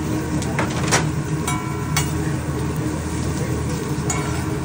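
Cabbage, meat and noodles sizzling on a hibachi steel griddle, with sharp clicks and scrapes of a metal spatula against the steel, most of them in the first two seconds. A steady low hum runs underneath.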